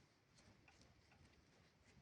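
Near silence with faint, scattered small sticky clicks, from slime or soft clay being handled.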